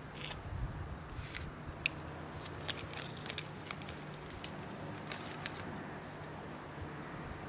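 Light crinkling and a scatter of small sharp clicks as a small piece of pink paper is handled and unfolded between the fingers, dying away after about five and a half seconds, over a steady low hum.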